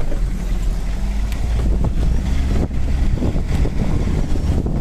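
Cabin noise of an off-road vehicle driving over a rough, rocky mountain track: a steady low rumble of engine and tyres, with scattered knocks and rattles from the body.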